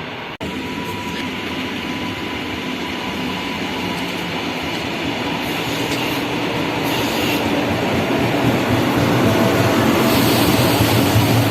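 A passenger train running through a station, its rumble growing steadily louder as it comes closer, with a faint thin squeal in the first few seconds. The sound drops out for an instant just after the start.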